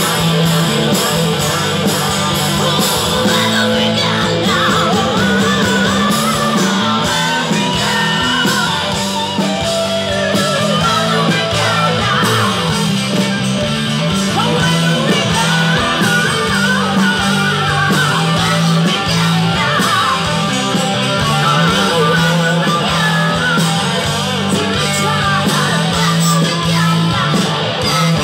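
Live rock band playing through a PA: a woman singing over electric guitars, bass and drums, recorded from within the audience.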